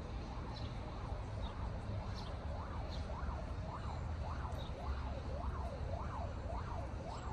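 Emergency-vehicle siren in a fast up-and-down yelp, rising and falling about twice a second and growing clearer from about two seconds in. It sounds over a steady low rumble of city traffic.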